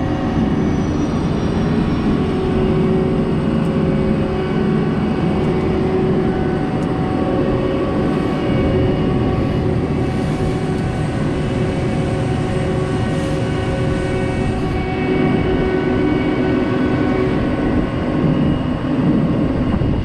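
John Deere combine running in a soybean field: a steady engine drone with the rumble of the threshing machinery and several steady whining tones from the header and feeder-house drives.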